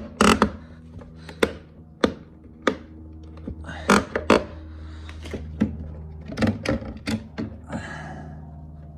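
Plastic side-mirror parts being handled and fitted, giving a series of sharp clicks and knocks at irregular intervals, with a steady low hum underneath.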